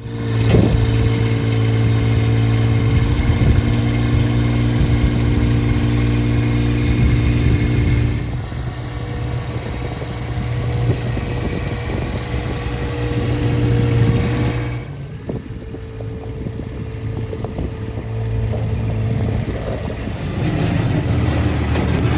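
WorkyQuad SSQ 21 skid steer loader's engine running under work, its level and pitch shifting with load: it eases off about eight seconds in and again around fifteen seconds, then picks up near the end.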